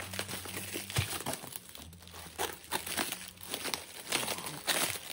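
Plastic bubble wrap crinkling and crackling in irregular bursts as it is handled and cut open with scissors.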